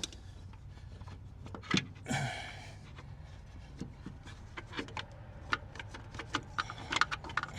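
Scattered small clicks and knocks of hands working on an engine's distributor and unplugging its wiring connector, with a brief rustle about two seconds in and a quick run of clicks near the end.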